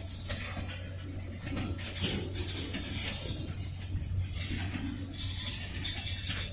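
Rail yard working sounds: a railcar mover's engine running with a steady low drone, with faint metallic clinks and rattles from the tank cars as they are shifted.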